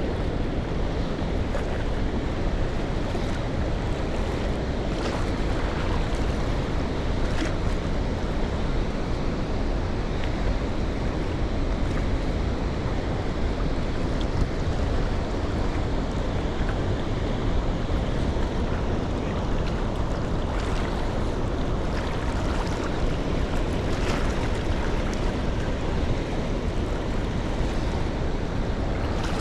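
Steady rushing noise of wind on the microphone, heaviest in the low end, with a few faint ticks.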